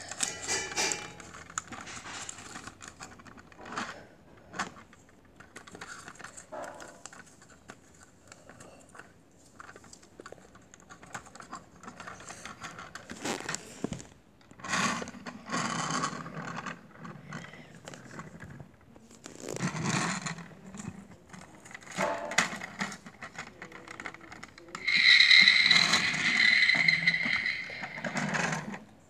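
Plastic toy truck being handled and moved on a wooden floor: scattered clicks, scrapes and rattles. Near the end, a louder, steady high-pitched sound lasts about three seconds.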